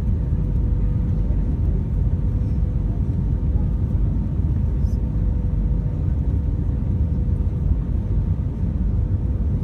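Steady cabin noise of an Airbus A319 airliner in flight: a low, even rumble of engines and airflow with a faint steady hum.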